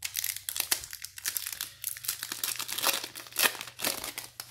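Foil wrapper of a 1992-93 Fleer Ultra basketball card pack crinkling and tearing as it is pulled open by hand, a dense run of crackles that stops near the end.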